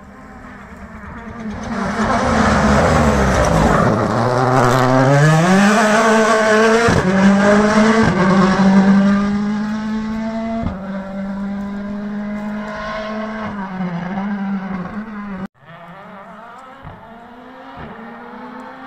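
A WRC Rally1 hybrid rally car's 1.6-litre turbocharged four-cylinder engine going through a tight hairpin. The engine swells as the car arrives, then revs climb sharply as it accelerates out, with quick upshifts, and it fades away up the road. The sound drops off suddenly near the end.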